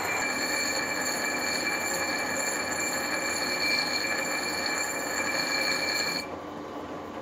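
Bench grinder's abrasive wheel grinding a cast-iron lamp base, a steady high whine over a gritty grinding noise as weld build-up is ground down. About six seconds in, the grinding drops away and only a quieter hum is left.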